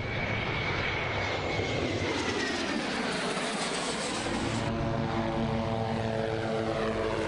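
Aircraft engine noise as a plane flies past, its pitch slowly falling as it goes by. About 4.7 seconds in, the sound changes abruptly to the steady drone of small helicopters, with several held tones.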